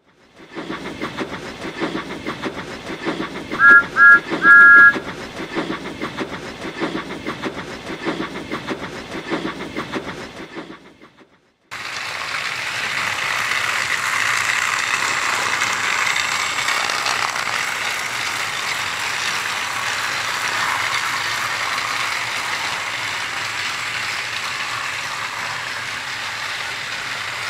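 Battery-powered Thomas & Friends Trackmaster toy engines whirring along plastic track, with wheels clicking in a regular beat over the track joints. About four seconds in there are three short high-pitched toots. After a brief cut to silence, a steadier, louder motor whir takes over.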